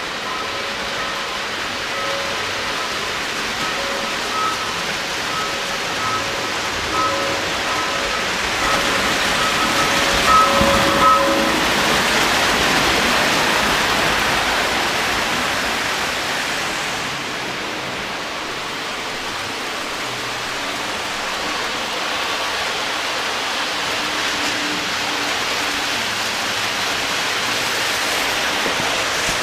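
Lionel O gauge trains running on three-rail track: a steady rolling whir and clatter of metal wheels on rail, swelling about halfway through as a train of passenger cars passes close. A light tone repeats about twice a second during the first third.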